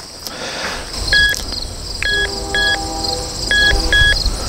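Metal detector beeping: five short beeps at uneven intervals as the search coil passes over buried metal. Lower sustained tones and a low rumble sit underneath.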